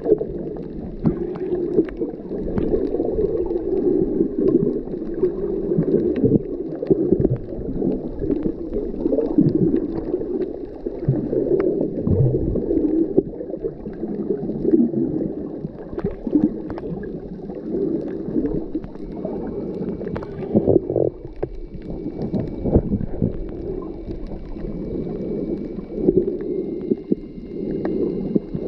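Underwater sound picked up through a camera's waterproof housing: a muffled, continuous gurgling rush of water moving against the case, dotted with sharp clicks and knocks. A faint thin steady whine comes in about two-thirds of the way through.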